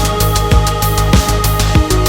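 Electronic background music with a steady beat: a drum hit about every half second over a deep bass and held synth tones.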